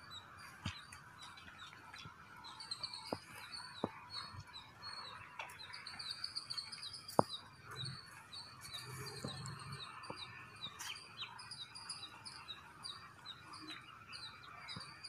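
Small birds chirping in rapid, repeated short high notes, with a few sharp clicks scattered through, the loudest about seven seconds in.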